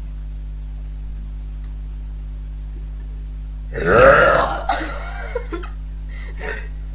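A girl's long, loud burp about four seconds in, wavering in pitch, followed by a few short, softer sounds, over a steady low hum.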